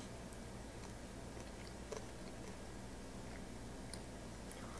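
Faint chewing of a bite of chocolate-coated bacon, with a couple of soft clicks over a low, steady room hum.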